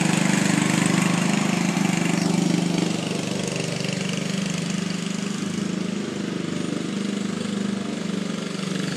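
Walk-behind lawn mower engine running steadily while mowing, a steady hum that becomes a little fainter about three seconds in as the mower moves away.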